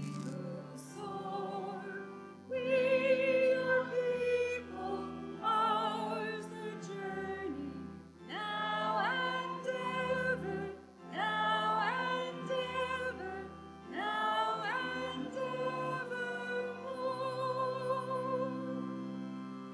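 A closing hymn sung in church, led by a voice with vibrato on the held notes, over a sustained accompaniment with low bass notes.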